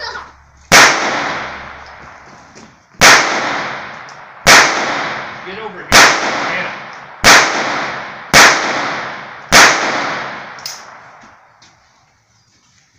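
Pistol fired shot by shot, seven loud shots about one to two seconds apart, each with a trailing echo, while a new pistol is zeroed in on paper. A faint crack follows the last shot, then it goes quiet.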